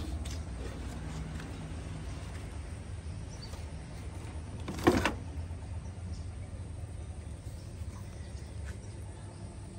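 Handling of an old hard drive in a scrapped metal computer case: one short sharp clatter about five seconds in, over a steady low rumble.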